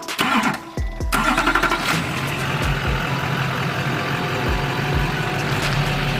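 Truck engine cranking and catching about a second in, then idling steadily.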